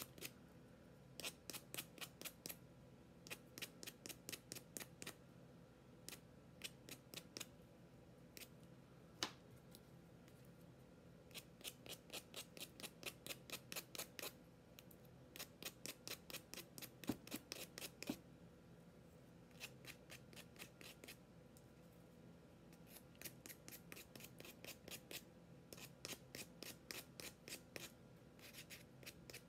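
Worn sandpaper rasping in quick back-and-forth strokes along the edges of a paper-covered wooden cutout, taking off the excess paper. The strokes come about four or five a second in runs of a few seconds, with short pauses between.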